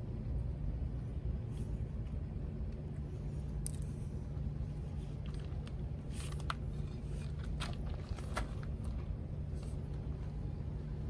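Steady low rumble with a few short, sharp clicks scattered through it.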